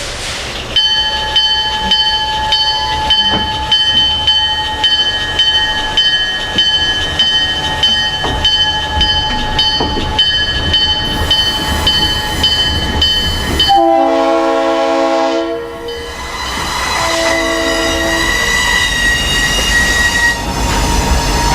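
A bell ringing steadily about twice a second, then a diesel locomotive's air horn: a long chord blast about two-thirds of the way through and a shorter one soon after, over the train's low rumble.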